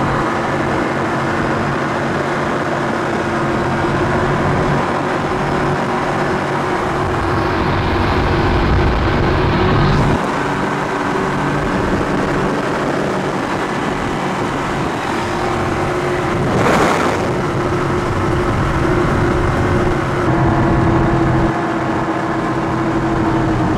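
Twin 1,200 hp Mercury engines of an MTI 48 offshore powerboat running steadily at high speed, about 133 mph, a constant engine drone mixed with rushing wind and water. The sound shifts slightly around 10 and 20 seconds in, and a short loud burst of noise comes about 17 seconds in.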